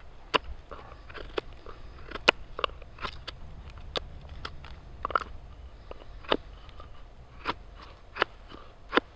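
Knife blade slicing shavings from a wooden mallet's handle: a dozen or more sharp, crunching cuts at an irregular pace, the loudest about two seconds in and near the end.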